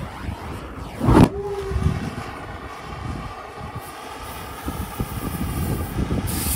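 Flammable spray inside a large truck tyre catching light from a torch with one loud burst about a second in: fire-seating the tyre's beads onto a steel rim. Flames keep burning around the tyre against a steady background hum, and air hisses near the end.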